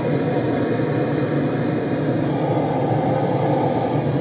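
Bernzomatic handheld propane torch burning steadily, its flame held on fire-starter cubes and lump charcoal to light them: an even, unbroken rushing hiss.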